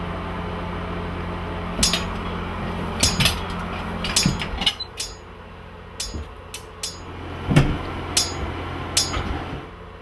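A knife stabbing repeatedly into a sink: about a dozen sharp, irregular strikes over a steady low hum.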